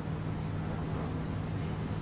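Room tone: a steady low hum over a constant background hiss, unchanging throughout.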